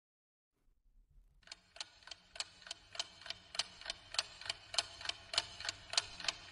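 Clock ticking fast and evenly, about three ticks a second. It starts about a second and a half in and grows slowly louder.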